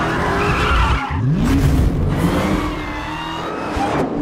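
A car engine revving, its pitch climbing about a second in, with tyres squealing and skidding.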